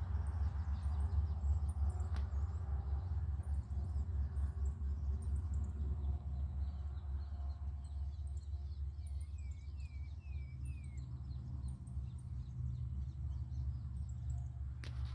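Downy waterfowl chicks peeping in short, high, scattered calls, with a quick run of four falling peeps about nine to eleven seconds in, over a steady low rumble.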